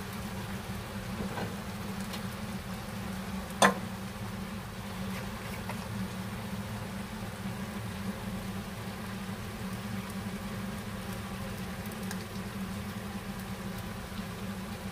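A steady low kitchen hum, with one sharp clink of glassware a little under four seconds in while soy sauce is measured into a small glass measuring cup.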